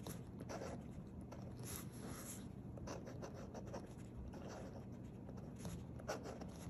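Faint scratching of a Pilot Custom 845 Urushi fountain pen's medium nib on paper as a word is written in cursive, in short irregular strokes with brief pauses between them.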